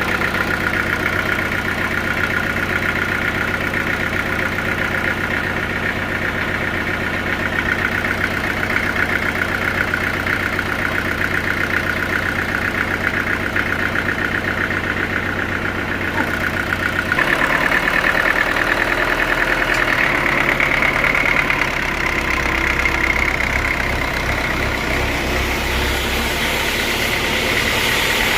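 Sawmill machinery running steadily with an engine drone, the pitch and tone shifting abruptly about two-thirds of the way through.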